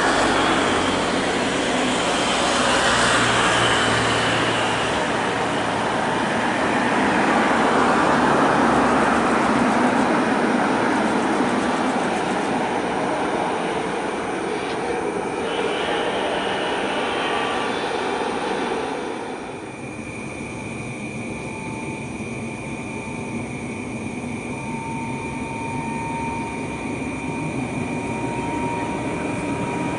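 Boeing 777-300ER's GE90 jet engines at takeoff power, a loud steady roar that swells and then drops off about two-thirds of the way through. A quieter roar with a thin engine whine remains.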